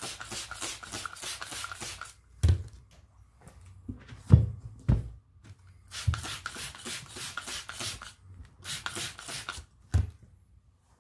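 Trigger spray bottle squirting soapy dish-soap water onto a mower tire, in quick runs of many short hissing squirts. Between the runs come a few dull thumps, the loudest about halfway through.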